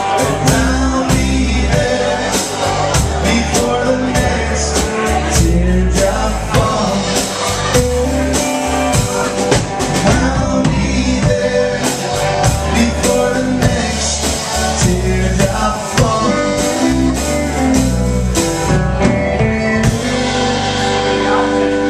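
A live country band playing a song, with drums, electric guitar and pedal steel guitar and a singing voice, loud and steady throughout.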